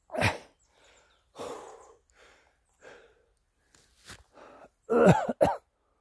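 A man coughing several times with heavy breaths between, the loudest two coughs coming close together near the end.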